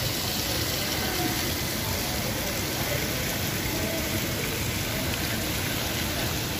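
Steady, even rushing noise with faint voices in the background.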